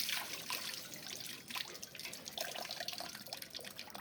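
Water splashing and trickling from the spout of a freshly repaired hand pump, slowly dying down toward drips: the pump is delivering water again.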